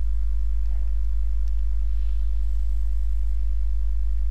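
Steady low electrical hum, a mains-type drone with faint overtones above it, holding at one level.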